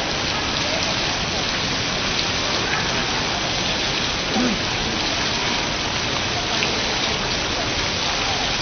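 Water streaming and splashing down from a digital water-curtain display, a steady rain-like hiss.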